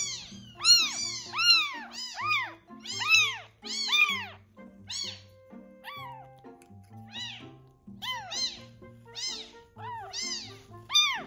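A neonatal tabby kitten, about a week old and only 85 to 89 grams, crying loudly and repeatedly while being syringe-fed milk. The cries are high and come about two a second, each one rising and falling, with fewer between about five and eight seconds in. It cries because it is frantic with hunger and screams even as it drinks.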